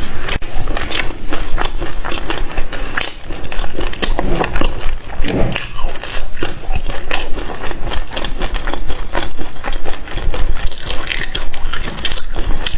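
Close-miked chewing of passion fruit: the pulp and its crunchy seeds crackling and clicking between the teeth in a dense, uneven run of small snaps and wet mouth sounds.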